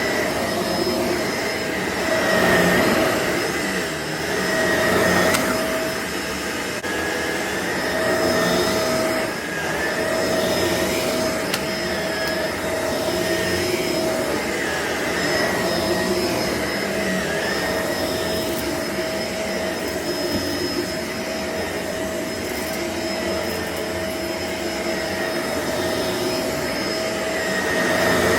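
Shark upright vacuum cleaner running continuously with a steady motor whine, its loudness swelling and easing every few seconds.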